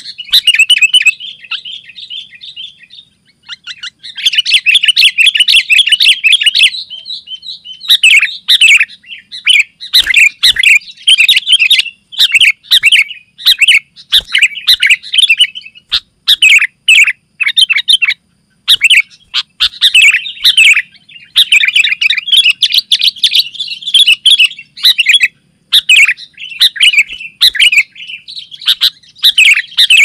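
Sooty-headed bulbul (kutilang) singing persistently: loud, quick, bubbly chirping phrases one after another, with only short pauses between them.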